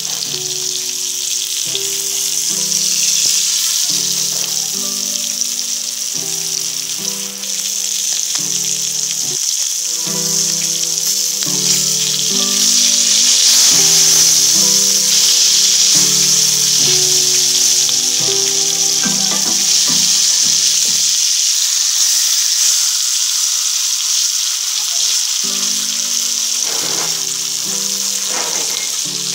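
Masala-coated fish steaks sizzling steadily as they shallow-fry in hot oil in a pan. Background music with a melody plays alongside, breaks off about two-thirds of the way through, and comes back near the end.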